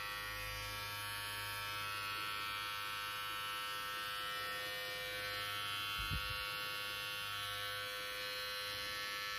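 Xiaomi Mi beard trimmer running with a steady, even buzz from its motor and blades. A brief low thump about six seconds in.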